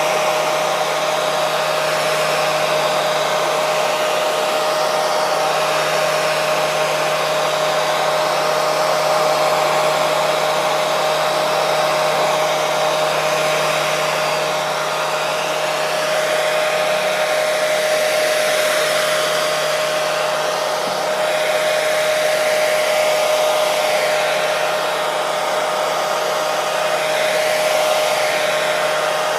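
Hair dryer running continuously: an even rush of air with a steady whine held at one pitch.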